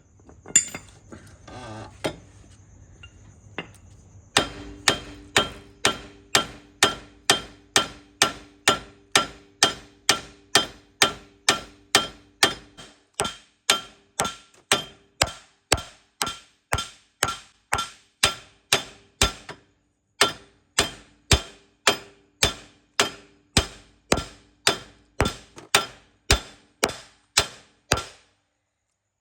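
A hammer striking metal in a steady rhythm, about two and a half blows a second, each blow ringing metallically. It starts after a few seconds of light clinking and stops abruptly near the end.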